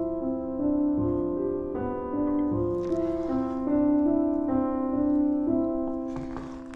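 Slow, soft background piano music with sustained notes changing about once a second, fading out near the end.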